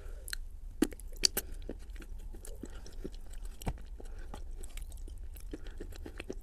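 Close-up chewing of a chunk of clay: a few sharp crunches about a second in as it is bitten, one more later, and many small crackles as it is chewed.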